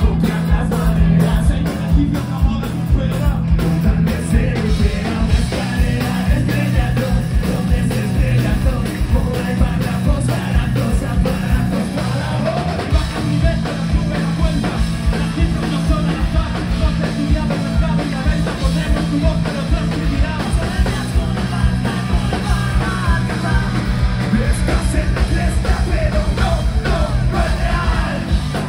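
Live band music played loud: several vocalists rapping and shouting into microphones over guitar, bass and drums, with a steady beat that quickens in the low end near the end.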